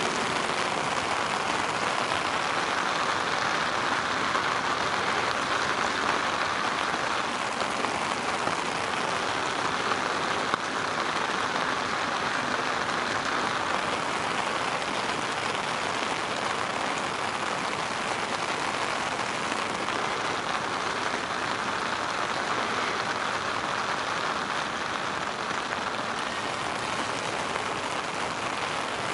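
Steady rain falling on a river's surface, an even, unbroken hiss.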